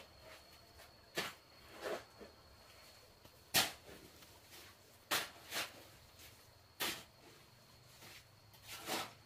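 Footsteps and scuffs on bare dirt and grass, a handful of short irregular scrapes, the loudest about a third of the way in. A faint steady high tone runs underneath.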